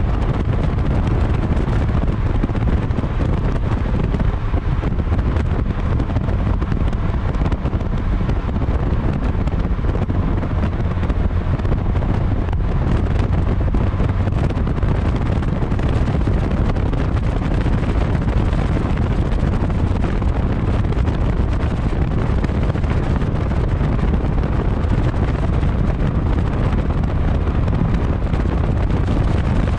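Wind buffeting the microphone of a camera mounted outside a 2012 Fiat 500 Abarth at speed, a steady low rumble mixed with tyre noise on asphalt.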